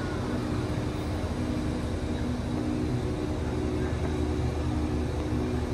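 A train's diesel engine running steadily, with a low hum.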